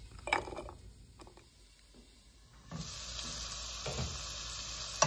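A few clinks as pieces of green chilli, garlic and coconut drop into a stainless-steel grinder jar. About two and a half seconds in, a steady sizzle starts: sliced ivy gourd frying in oil in a pan.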